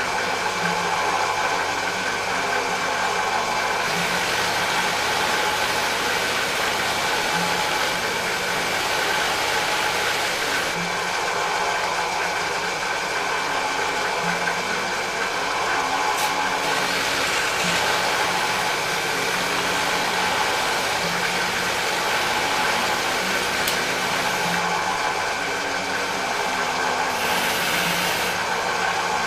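Drill press motor running steadily with a brush wheel spinning in its chuck. Small brass motif pieces held on a wooden board are polished against the wheel, adding a hiss that swells and fades as they are pressed to it.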